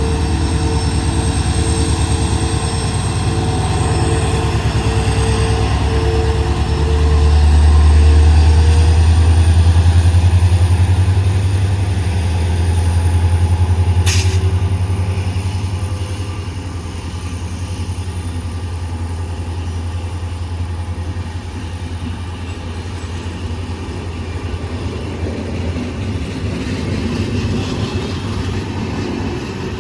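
WDP4 diesel locomotive's EMD two-stroke diesel engine humming steadily with a deep drone. The drone swells louder for several seconds about a quarter of the way in, with a faint high whine above it and a single sharp click near the middle.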